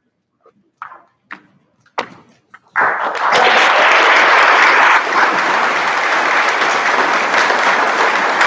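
Audience applauding: a few scattered claps at first, then about three seconds in loud applause breaks out all at once and carries on.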